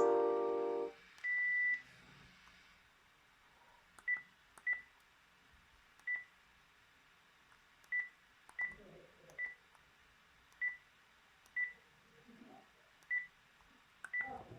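Panasonic KX-PRS110 cordless phone handset: a ringtone chord stops within the first second, then one longer beep, then about ten short key-press beeps at one high pitch, spaced irregularly, as its buttons are pressed.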